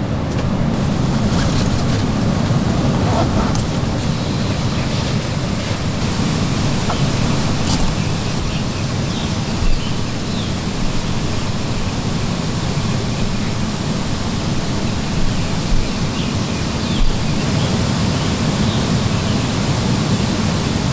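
Steady rushing of a forest valley stream, with a few faint clicks.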